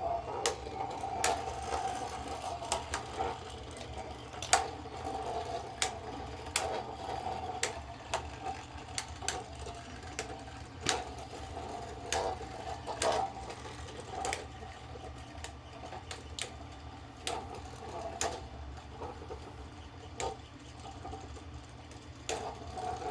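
Beyblade spinning tops whirring in a plastic stadium, with irregular sharp clacks as they hit each other and the stadium wall. The whir grows fainter as the tops slow.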